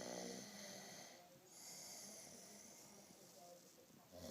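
A sleeping man snoring faintly. A rattling snore fades out just after the start, a hissing breath follows from about one and a half to three seconds in, and the next snore begins near the end.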